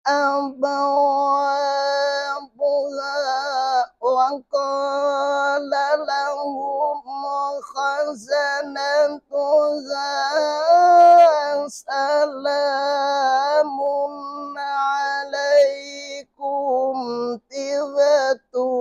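A man's solo voice chanting an Islamic devotional recitation, holding long ornamented notes that waver and curl in pitch, with short pauses for breath between phrases.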